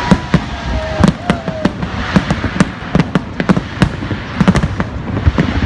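Aerial fireworks bursting in rapid, irregular succession: many sharp bangs and cracks, several a second, over a continuous rumble of the display.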